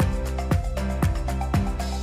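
Upbeat background music with a steady beat, about two beats a second, over sustained chords.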